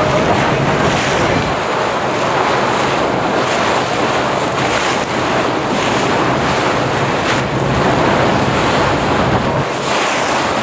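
Cruise ship lifeboat under way: its engine running with a steady low hum beneath loud rushing and splashing water along the hull, and wind buffeting the microphone.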